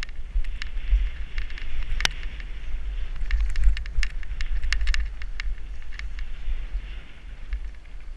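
Downhill mountain bike descending a dirt singletrack: wind rumble on the microphone, a steady rolling hiss, and frequent sharp clicks and rattles from the bike over bumps, the loudest knock about two seconds in.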